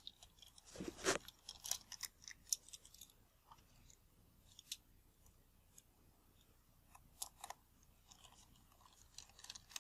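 Faint, scattered small clicks and light scrapes of a precision screwdriver turning the tiny screws that hold the front element of a Nikon Nikkor 50mm f/1.8 lens, with the lens being handled. There is a small flurry of clicks about a second in and a few more near the end.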